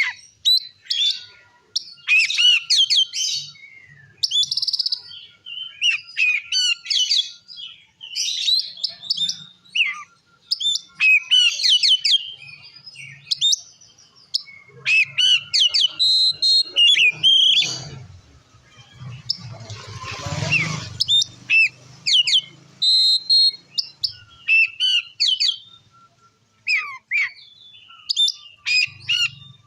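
Oriental magpie-robin (kacer) singing loudly in quick, varied phrases of whistles and chatters with short pauses between them. This is the full, free-flowing song that keepers play to provoke other kacer. About two-thirds of the way through, a brief rushing noise runs under the song for a few seconds.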